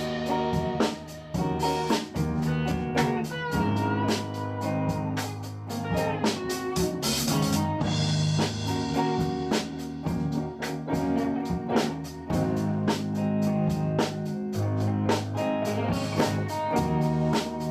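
Background music: a blues-style guitar track over a steady drum beat.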